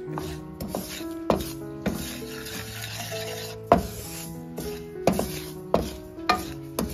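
Wooden spatula stirring and scraping dry semolina and cardamom pods around a nonstick wok as the semolina dry-roasts, a gritty rasping sound, over background music.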